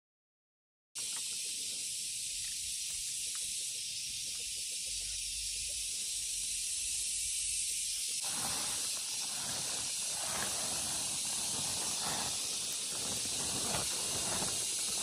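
After about a second of dead silence, a steady high-pitched hiss sets in and runs on. About eight seconds in, a busier run of irregular lower rustling and knocking joins it.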